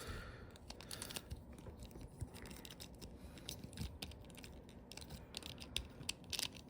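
Faint, irregular clicks and taps of small hard-plastic Beyblade X spinning-top parts being handled and fitted together by hand.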